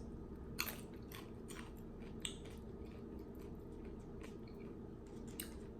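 Faint chewing by a person eating, scattered small wet clicks and smacks of the mouth over a steady low hum.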